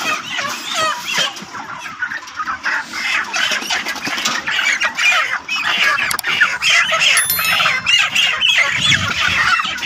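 A flock of broiler chickens squawking and clucking nonstop, many overlapping calls, as the birds are grabbed by hand and moved between crates.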